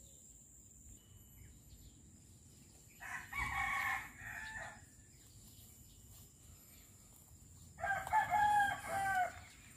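A rooster crowing twice, a few seconds apart, each crow lasting about a second and a half.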